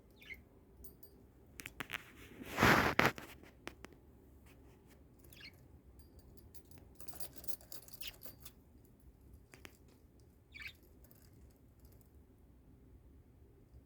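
Pet budgerigar making small sounds: a few short, soft falling chirps and light clicks, with one brief, louder noisy burst about two and a half seconds in.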